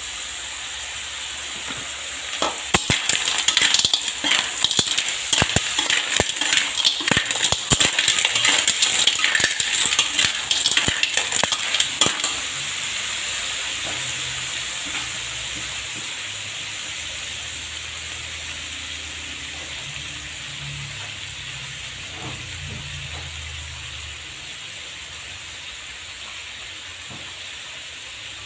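Clams in their shells being stir-fried in a wok. A metal spatula scrapes the pan and the shells clatter for about ten seconds over a steady sizzle, which then carries on alone and slowly fades.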